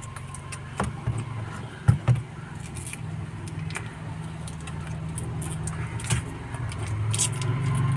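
Plastic wrapper of an M-Seal epoxy putty stick crinkling and tearing in short crackles as it is peeled off by hand. A steady low motor hum runs underneath and grows louder near the end.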